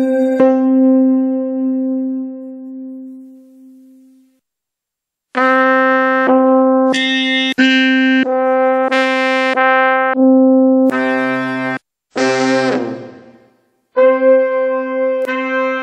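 Roland Fantom G8 synthesizer presets auditioned one after another, each playing the same single note for about a second. A long note fades out, a short silence follows, then a string of brass-like tones in changing timbres, a few with a lower octave added.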